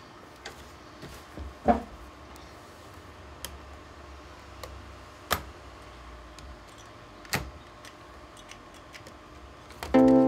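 Scattered clicks and knocks of hands handling and working on a Sony NX5 camcorder's body, over a faint steady low hum. Music starts near the end.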